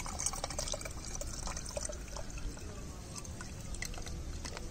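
Pulpy liquid of crushed garlic and onion steeped in water, poured from a plastic container through a mesh strainer: dense splashing and spattering at first, thinning to a lighter trickle with a few separate drips near the end.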